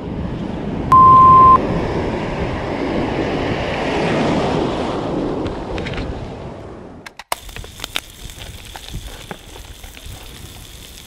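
A broad rush of noise swells up and then fades away over about seven seconds, with a loud, pure, censor-style bleep lasting under a second about a second in. After an abrupt cut, there is the quiet crackle of food frying in a pan on a camp stove, over a thin, steady, high whine.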